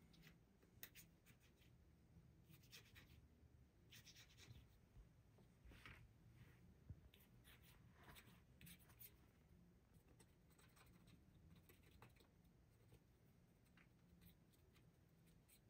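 Near silence with faint, intermittent scratching and rubbing from cleaning the small parts of a .22 revolver.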